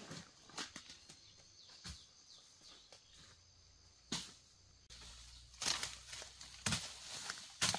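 Rustling and crackling of dry leaves and brush being pushed through and stepped on, with scattered sharp snaps. About five seconds in the crackling becomes denser and louder.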